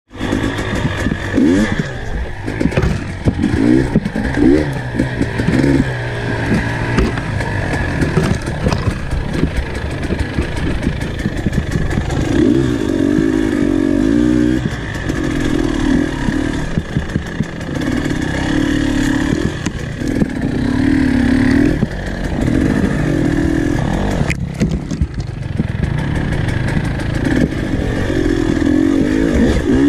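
Dirt bike engine running under way on a trail, its pitch rising and falling again and again as the throttle opens and closes, heard close up from the bike.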